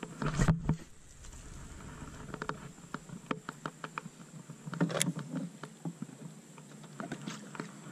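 A baitcasting reel is cranked through a lure retrieve. Scattered small clicks and taps come from the reel and the hands on the rod, with a brief louder rustle about half a second in.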